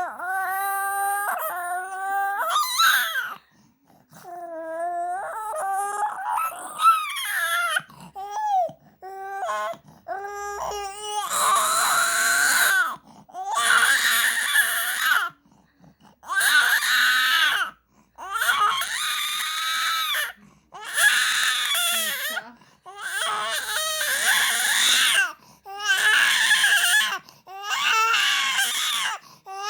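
A small child crying. It begins with drawn-out, wavering whimpers, then from about eleven seconds in settles into loud wails that come in regular bursts of a second or two with short gasping pauses between. The crying follows being given kencur (aromatic ginger) as a cough remedy.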